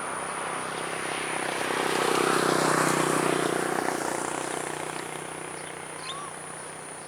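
Engine noise of something passing by, swelling to its loudest about halfway and then slowly fading, with a few faint bird chirps near the end.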